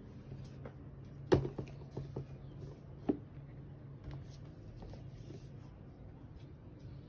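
A boxed iPad being handled: light taps and rubbing of the box, with two sharp knocks about a second and a half and three seconds in, over a steady low hum.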